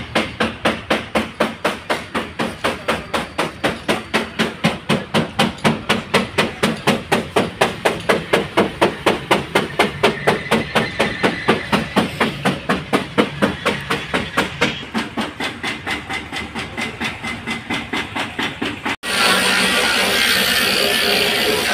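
Rapid, regular knocking in a car body workshop, about four strikes a second, growing and fading in level. About 19 seconds in it cuts off abruptly and guitar music takes over.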